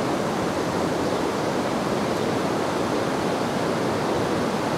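Steady rush of river rapids, water running over rocks in a shallow riffle.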